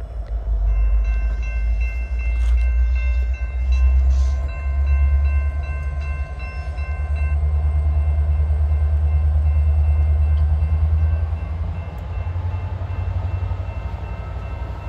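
Approaching freight train led by EMD SD75M diesel locomotives: a loud, steady low engine rumble. Over it, a locomotive horn chord sounds from about a second in to about seven seconds, then carries on more faintly.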